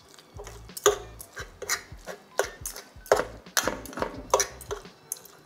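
Two metal forks scraping and clicking against a pot while shredding tender cooked beef, in irregular strokes a few times a second.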